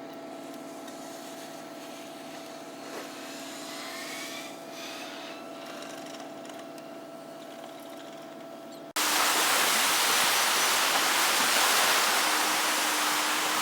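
A steady engine drone with several fixed tones, and a brief rising whine about four to five seconds in. About nine seconds in it cuts off abruptly to a loud, steady rushing noise.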